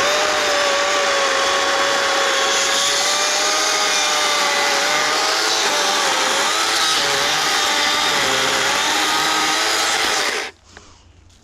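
Kobalt cordless electric chainsaw running at full speed as it cuts into a resin-rich standing fatwood pine trunk. Its whine wavers and dips in the middle as the chain loads up in the dense wood, then cuts off suddenly about ten seconds in.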